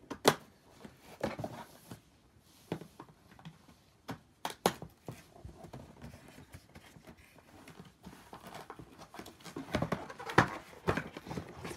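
Cardboard toy packaging being handled and opened: scattered sharp taps and knocks with faint rustling between them, the sharpest just after the start and about ten seconds in.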